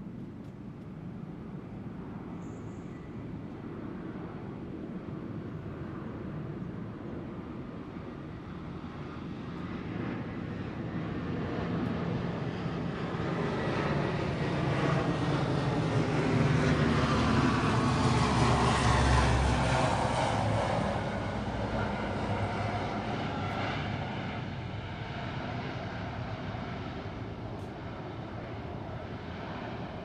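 Military fixed-wing aircraft flying past. Its engine noise grows over about ten seconds, is loudest a little past the middle with a sweeping, shifting pitch as it passes, then fades away.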